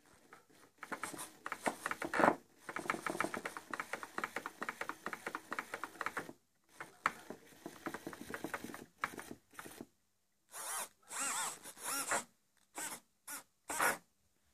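Hobby RC servo motors whirring in short bursts as the transmitter stick is moved, with a rapid chattering buzz through the first half and separate shorter whines with a wavering pitch near the end.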